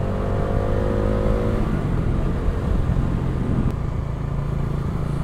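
Bajaj Dominar 400's single-cylinder engine running steadily under the rider, with wind and road noise, as the motorcycle slows from cruising speed; a higher engine tone eases slightly downward and fades about a second and a half in.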